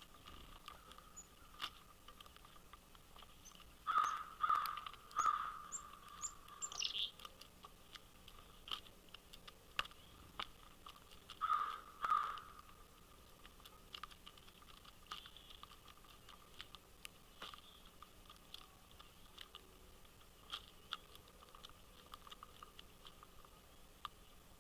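Wild birds calling at a feeder. Three loud calls come about four seconds in and two more near the twelve-second mark, with a quick run of high notes in between. Faint clicks are scattered throughout.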